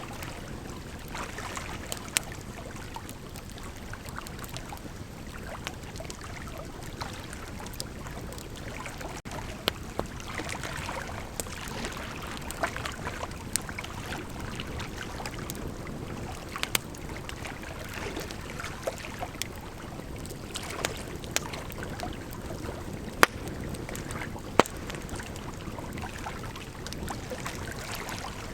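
Bonfire burning: a steady rushing hiss of flame with sharp wood crackles and pops at irregular intervals, a few of them much louder than the rest.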